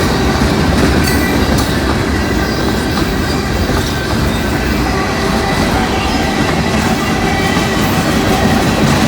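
Norfolk Southern freight cars rolling past at speed around a sharp super-elevated curve: a steady heavy rumble of wheels on welded rail with scattered clicks and a faint high wheel squeal from the curve.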